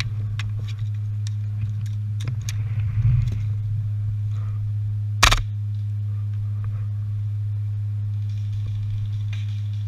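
Scattered sharp snaps of airsoft guns firing, mostly faint, with one loud shot about five seconds in, over a steady low hum.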